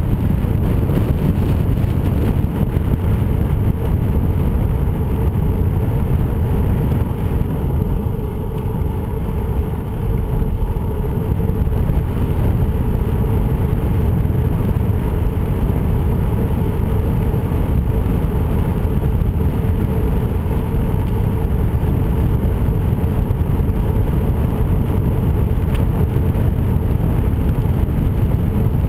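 Steady low rumble of wind and ride vibration on a camera moving along a paved trail, with a faint steady hum underneath.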